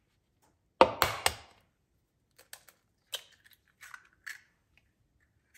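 An egg being cracked open into a mixing bowl: three sharp knocks close together about a second in, then a few softer clicks and taps.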